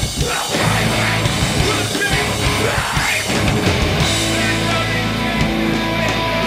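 Live rock band playing loudly on electric guitars, bass and drums, with held low bass notes that change about four seconds in.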